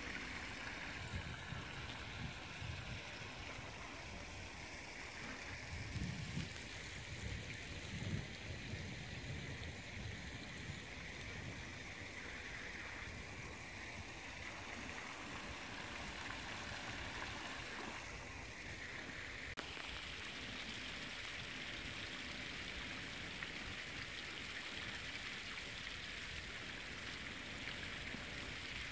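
Steady faint outdoor hiss with an uneven low rumble underneath; the rumble is strongest in the first ten seconds or so.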